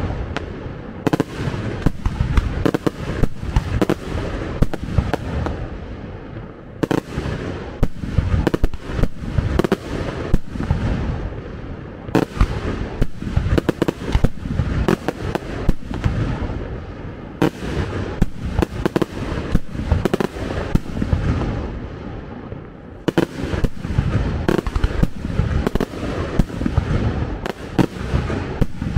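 Fireworks display: a dense, continuous barrage of bangs, several a second, easing briefly every five or six seconds before building again.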